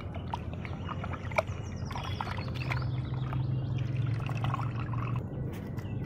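Water sloshing and splashing in a clay pot as pieces of parrot fish are swished and rinsed by hand, in many short irregular splashes. A low steady hum sounds in the background from about halfway through.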